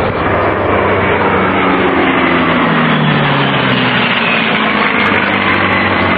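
Propeller airplane flying past, its engine drone dropping in pitch as it goes by, about two to four seconds in, over a steady loud rush of noise.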